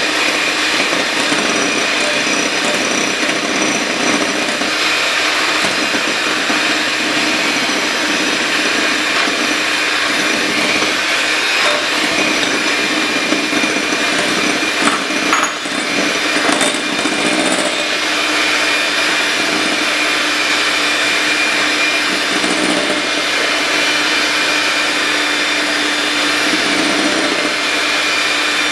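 Electric hand mixer running steadily, its beaters whirring through an egg-yolk and sugar mixture in a glass bowl. A few clicks and a brief dip in the whir come about halfway through.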